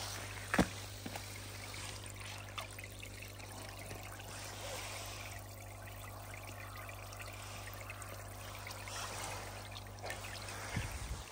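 Water spraying and trickling as a spray wand is worked through the shallow water of a pond, over a steady low hum.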